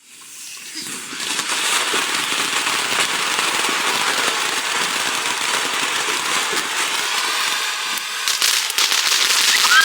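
A lit firework hissing and crackling steadily, fading in at the start, with a run of sharper pops near the end.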